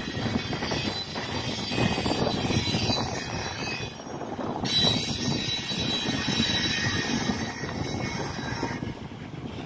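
Freight train cars rolling past on the tracks: a steady rumble of steel wheels on rail, with a dip around four seconds in.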